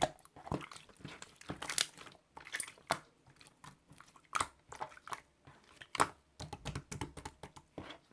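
Irregular crunching and crinkling handling sounds: a busy run of small crackles with a few louder snaps.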